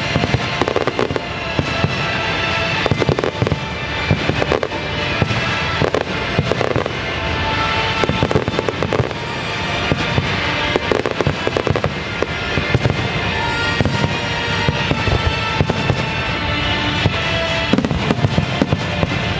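Aerial fireworks going off in a dense, continuous run of bangs and crackles, with music playing along underneath.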